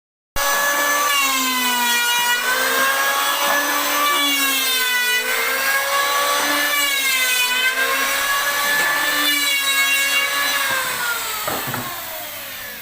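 An electric woodworking power tool running, its pitch dipping and recovering again and again as it cuts into wood, fading out near the end.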